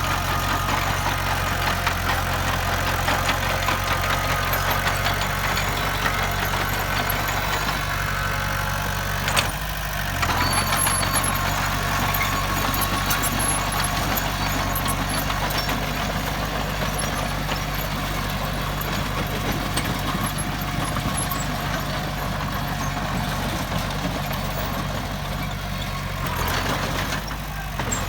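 Heavy diesel earthmoving machinery running steadily, with brief breaks about ten seconds in and again near the end.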